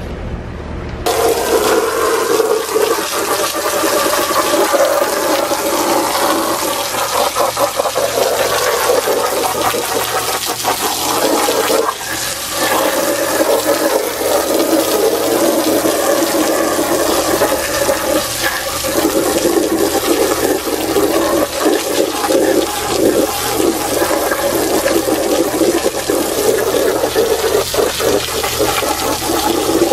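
Garden hose pistol-grip spray nozzle jetting water onto soapy rubber car floor mats on concrete, a steady rush of spray that starts about a second in, with a brief break near the middle.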